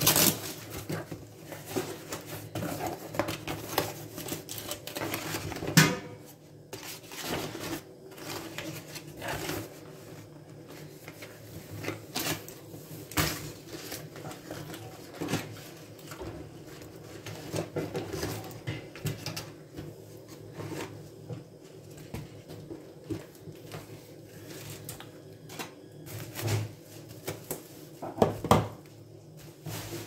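Kitchen handling sounds: irregular knocks, taps and rustles as hands work a cardboard carton, a whole fish and a roll of cling film on the countertop, with a faint steady hum underneath. One louder knock comes about six seconds in and another near the end.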